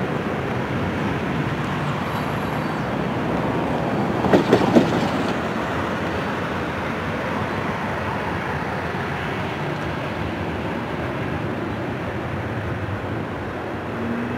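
Freight cars rolling across a steel railway bridge: a steady rumble of wheels on rail, with a quick run of three sharp clanks about four seconds in. The rumble eases slightly in the second half as the end of the train passes.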